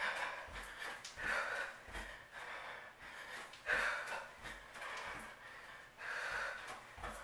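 A woman breathing hard from exercise, with a breathy exhale every second or two, and soft thuds of her feet on carpet as she steps through lunges.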